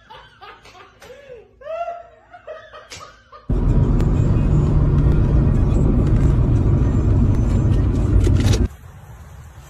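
Laughter and chuckling, then a sudden loud, steady rumble inside a car that lasts about five seconds and cuts off abruptly.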